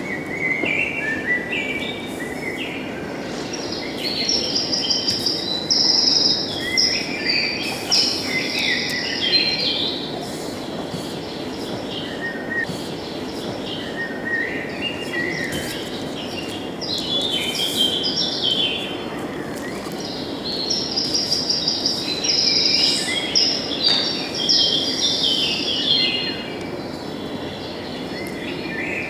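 Recorded birdsong played over a loudspeaker as the dance's soundtrack: several birds chirping and trilling in flurries over a steady low rumble of ambient noise. The flurries come in two busy spells, one early and one late.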